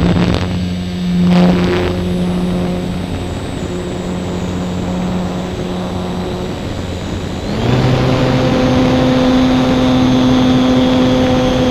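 Electric motor and spinning propeller of a ParkZone Radian RC glider, heard from onboard over steady wind rush. At about seven and a half seconds the motor comes up to a louder, steady higher note and holds it.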